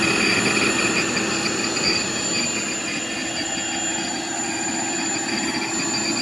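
Intex Fast-Fill 120-volt electric air pump running steadily as it inflates an air mattress, a continuous whirr with a thin high whine on top, powered through a small inverter from a portable power pack.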